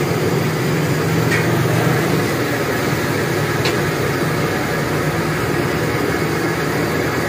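Chicken pieces deep-frying in a large karahi of hot oil: a steady sizzle over the low roar of the gas burner beneath it, with a couple of faint pops.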